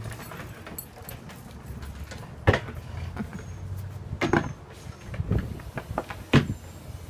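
Goats' hooves knocking and thumping on the top of a box as they jump and scramble about on it, a handful of sharp knocks, the loudest about two and a half seconds in and again near the end.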